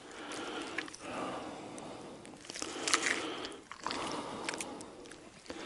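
Wet squelching and small clicks of a knife slitting open and gutting a fresh catfish, coming in uneven spells.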